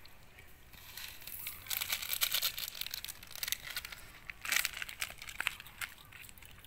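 Macaques picking through dry, crunchy noodle scraps on the ground: a dense run of dry crackling and crinkling for a couple of seconds, then another sharp burst about halfway through.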